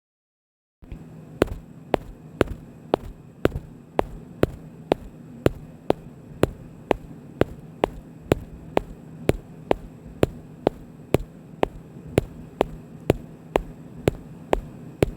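Footsteps sound effect at a walking pace: sharp, even steps about two a second over a steady low hum, starting about a second in after a brief silence.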